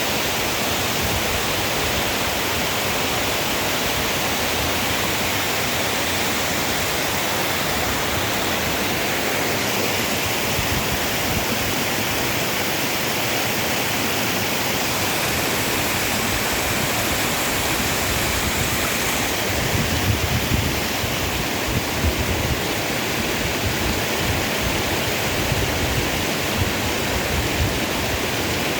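Waterfall: a steady, dense rush of falling water. From about two-thirds of the way in, irregular low bumps join it.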